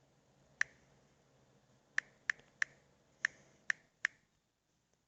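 Key clicks from a smartphone's on-screen keyboard as a word is typed: seven short, sharp clicks at an uneven pace over about three and a half seconds.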